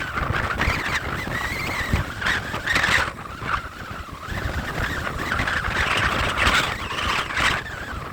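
Hurricane-force wind gusting and buffeting the microphone, a steady rush with low rumbling that swells and eases every second or two.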